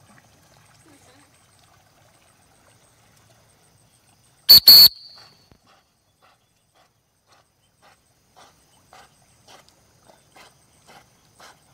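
A dog-training whistle blown in two short, loud blasts about four and a half seconds in. From about eight seconds on, soft regular sounds about twice a second come from the dog swimming back with the dummy, growing louder as it nears.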